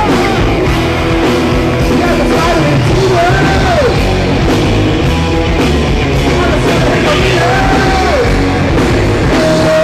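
Rock band playing live with a lead singer: loud, full-band rock song with drums and bass under sung, shouted vocal lines.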